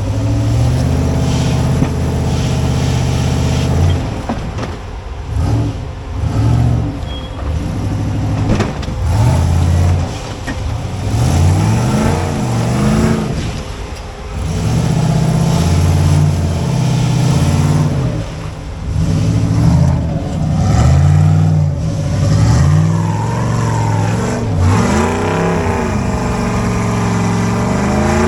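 Off-road rock crawler's engine revving in repeated bursts, rising and falling in pitch over and over as the rig climbs over rocks.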